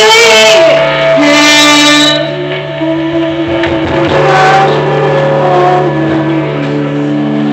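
Music: slow held melody notes over a steady low drone note.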